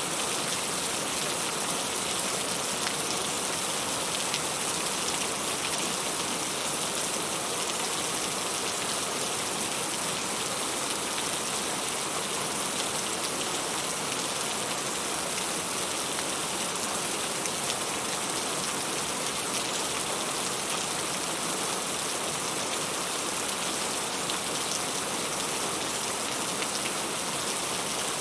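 Heavy rain falling steadily: a dense, even hiss of rain on surfaces with no letup.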